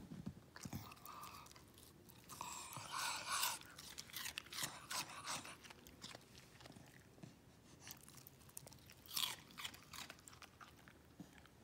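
Welsh terrier crunching and chewing a piece of cucumber: a string of sharp crunches, thickest about two to three and a half seconds in and again about nine seconds in.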